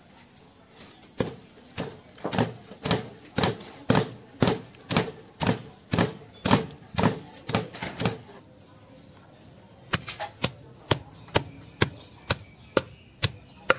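Wooden pestle pounding chopped herbs in a stone mortar: steady dull thuds about two a second. There is a pause of about two seconds midway, then the pounding resumes a little faster.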